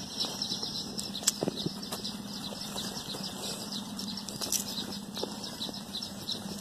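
Hands tearing open a ripe peach to free the stone, giving soft rustles and a few small clicks, over steady high-pitched chirping and a faint low hum in the background.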